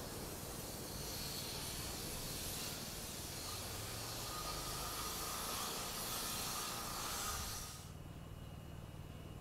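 An R68 subway train receding down the track, its wheels on the rails making a steady hiss with a faint ringing tone. The sound cuts off abruptly near the end.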